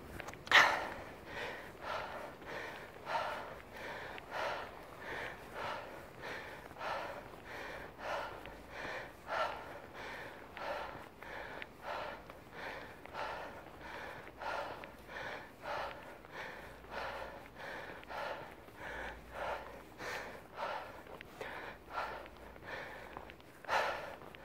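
A sprinter breathing hard while recovering between 100 m interval sprints: quick, steady, audible breaths, about one to two a second, with a sharper gasp about half a second in and another near the end.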